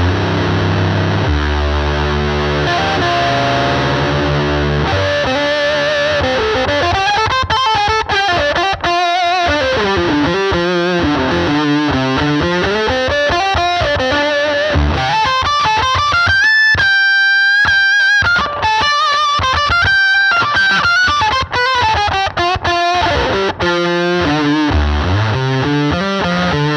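Electric guitar played through the EarthQuaker Devices Life Pedal V3 with its Shin-ei-style octave-up engaged over distortion, into a Fender Princeton Reverb amp. It opens with heavy low chords, then moves into a winding single-note lead with bends and a long held high note, and goes back to low chords near the end.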